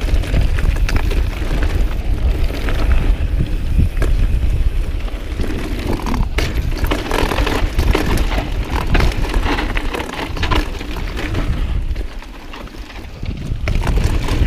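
Mountain bike ridden fast down a dirt singletrack: wind buffeting the microphone as a heavy rumble, with tyres on dirt and the bike rattling over bumps. The level eases off briefly near the end.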